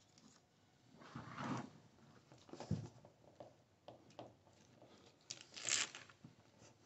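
Faint crinkling and rustling of a self-adhesive flexible plastic quarter-round strip being handled as its red backing liner is peeled and the strip pressed along the floor, in a few short scratchy bursts, the loudest near the end.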